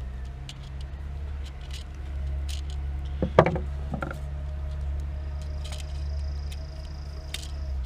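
Scattered light clicks and knocks of hands and tools working on a GFCI outlet's wiring, with one sharper click about three and a half seconds in, over a steady low rumble.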